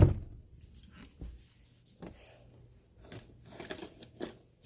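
Faint scattered clicks and knocks of plastic toys being handled and moved about, with a few taps clustered near the end.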